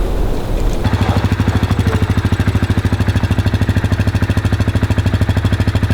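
Log splitter's small gasoline engine running steadily with an even putter of about fourteen beats a second, which comes in abruptly about a second in.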